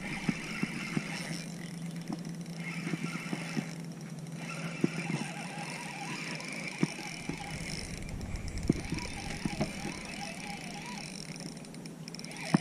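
Spinning reel being cranked while reeling in a hooked fish: its gears whir in spurts of one to a few seconds, with scattered light ticks and clicks.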